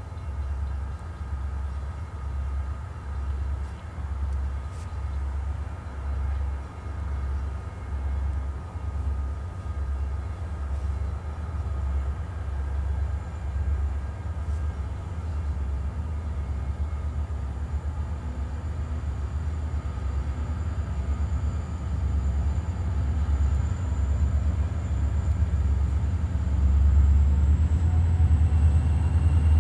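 Maine Central 600, a diesel freight locomotive, approaching slowly. Its low engine rumble throbs about once a second and grows steadily louder as it nears.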